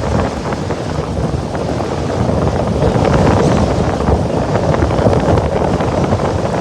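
Wind buffeting the microphone: a loud, unsteady rumble that rises and falls, with scattered small crackles.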